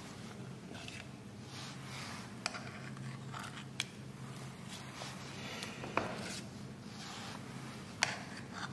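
Two metal spoons scraping thick chocolate chip muffin batter into paper cups, with about five sharp clicks of metal on metal. A low steady hum runs underneath.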